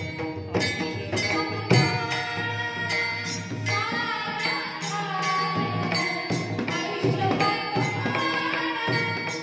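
Warkari devotional music: regular drum and cymbal strokes under a melody line that bends in pitch.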